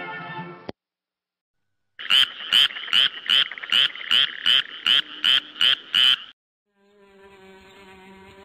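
The film's closing music cuts off abruptly. Then an end-ident sound effect plays: a loud, evenly pulsing sound of about eleven pulses, roughly two and a half a second, for about four seconds. A faint held tone follows near the end.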